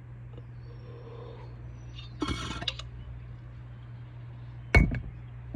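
A woman sniffling sharply through her nose about two seconds in, then a loud, abrupt cough near the end, followed by another as a coughing fit begins.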